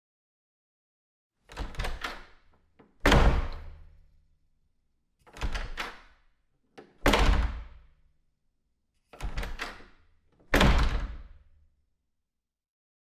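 A door opened and shut three times. Each time there is a quieter cluster of latch and handle clicks, then about a second and a half later a louder thud as the door closes, with a low boom that dies away quickly.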